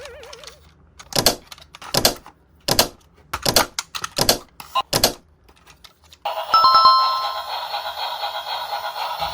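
Six short noisy bursts, about one every 0.7 s, then a ringing, ringtone-like electronic jingle starts suddenly about six seconds in.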